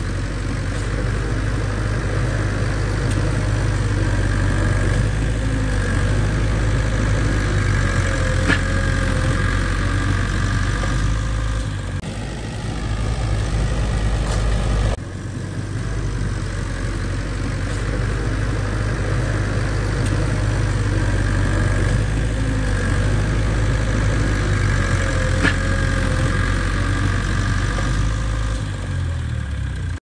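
Heavy diesel engine of a bulldozer running steadily, with a low, even engine note. The level drops sharply about halfway through, then recovers.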